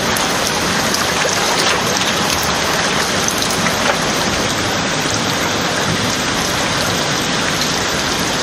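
Heavy rain falling: a steady, even hiss of downpour with scattered drop ticks.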